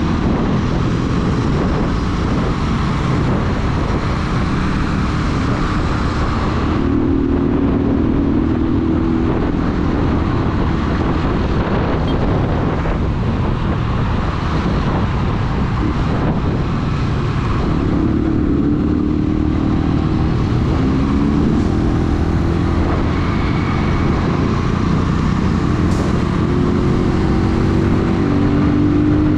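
AKT NKD 125 motorcycle's single-cylinder engine running while riding, over steady wind and road noise. Its engine tone stands out more clearly about a quarter of the way in and again through the last third.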